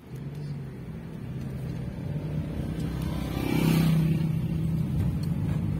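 Car engine and road noise heard from inside the cabin while driving. A motorcycle passes close alongside about three and a half seconds in, the loudest moment.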